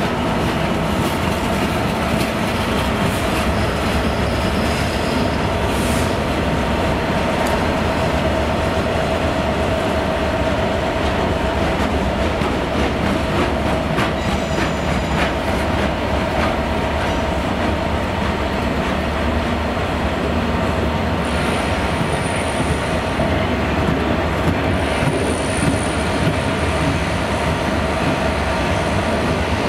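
Freight train of loaded steel coil wagons behind a DB Cargo Class 66 diesel rolling past, a steady rumble of wheels on rail. Thin high-pitched wheel squeals come in the last third.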